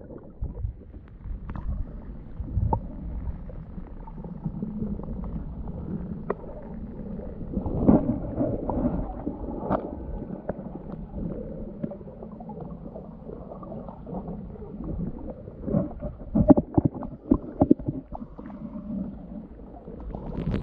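Muffled water sloshing and gurgling around a paddled kayak, with irregular knocks and clunks from the paddle and hull, loudest about eight seconds in and again around sixteen to seventeen seconds.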